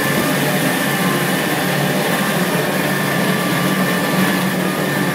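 Claas Arion 640 tractor running steadily while driving a Keenan 170 feeder wagon, a continuous mechanical drone with a thin steady whine on top.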